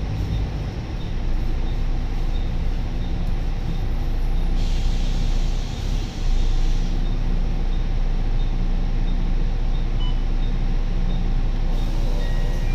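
Volvo B9TL double-decker bus's diesel engine running steadily, heard from inside the passenger saloon, with a hiss of compressed air about five seconds in that lasts about two seconds. A faint tick repeats about twice a second.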